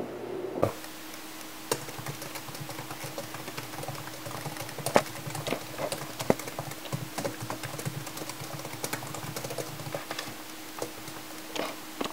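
Typing on a laptop keyboard: irregular key clicks, with a few louder taps, over a steady low hum.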